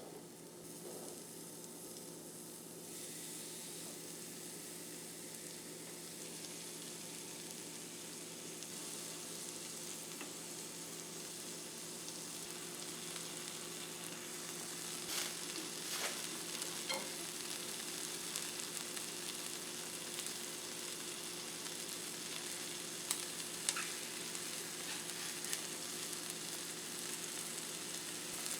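Food sizzling and frying in a hot pan, the sizzle building over the first few seconds and then holding steady. A few sharp clicks come about halfway through and again later, over a steady low hum.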